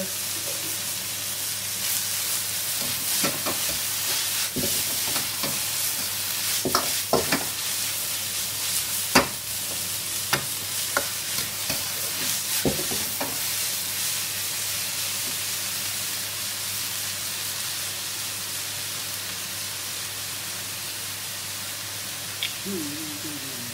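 Shredded cabbage and carrot sizzling in a hot wok, with a metal wok ladle scraping and clanking against the wok as the vegetables are stir-fried. The ladle strikes come thickly in the first half, then thin out to a steady sizzle.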